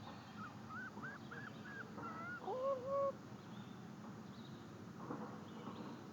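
Common loon calling: a run of short rising notes, then a louder, longer call about two and a half seconds in.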